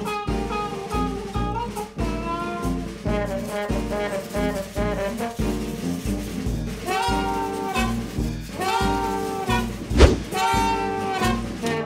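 Upbeat jazz background music with horns over a steady pulsing beat, with a brief sharp hit about ten seconds in.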